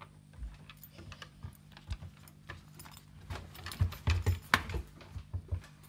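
Handling noise from a handheld phone: irregular small clicks and knocks, with a cluster of louder thumps about four seconds in, over a steady low hum of aquarium equipment.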